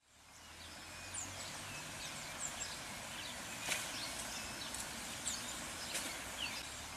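Outdoor ambience with birds chirping, a scatter of short, quick calls over a steady background hiss. It fades in over the first second.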